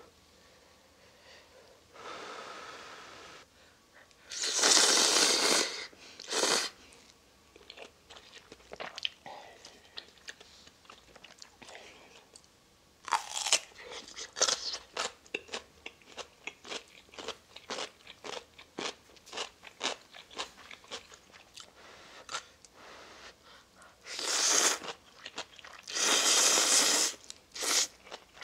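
Close-up eating sounds of a person eating instant ramen: long, loud slurps of noodles near the start and again near the end, and in between a run of many short crunching bites while chewing.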